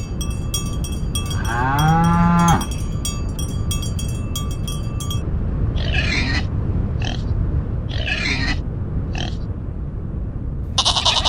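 A cow mooing once, a short call that rises then falls about a second and a half in, over a steady low rumble and a high chirping pattern. Later come four short noisy bursts, and a loud buzzy call begins just before the end.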